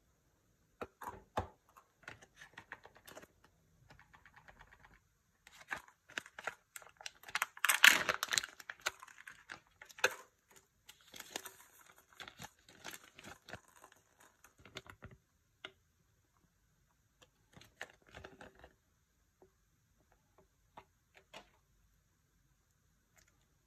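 Kinder Joy egg's plastic wrapper and packaging crinkling and tearing as it is opened, densest and loudest about eight seconds in. Then fainter paper rustling and scattered small clicks as the folded toy leaflet is opened and the small plastic figure is handled.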